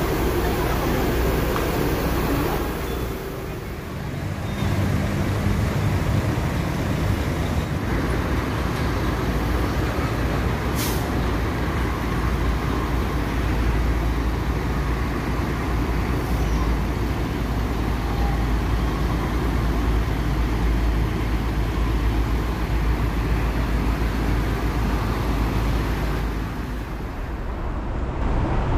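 Diesel engines of large coaches running close by, a steady low rumble, with one short hiss of air from an air brake about a third of the way in.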